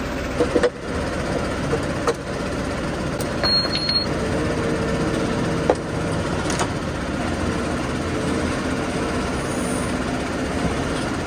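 Tractor engine running steadily while the tractor backs its drawbar up to a sprayer's hitch eye, with a few short knocks and clunks. A brief high beep sounds about three and a half seconds in.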